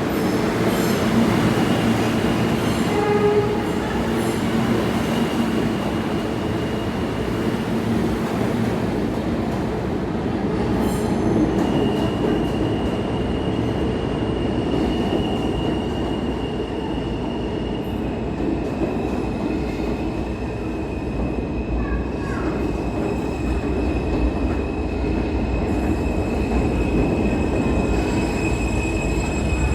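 New York City subway train running on the rails, a steady rumble with high wheel squeal. The squeal is held for several seconds at a time, three times over.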